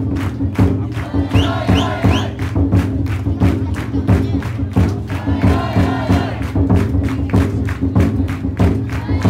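Taiko drum inside a futon daiko festival float beaten in a fast, steady rhythm, with the bearers and crowd chanting and shouting over it.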